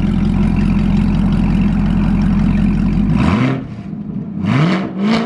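2018 Camaro ZL1's supercharged 6.2 L LT4 V8 idling steadily through a Corsa Extreme+ NPP cat-back exhaust. About three seconds in it gets three quick throttle blips, each rev rising and dropping back.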